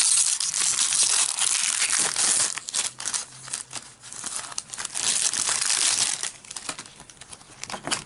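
A shiny foil photocard packet being torn open and crinkled by hand, with dense crackling in the first two seconds and lighter rustling after that as it is worked open and the cards are taken out.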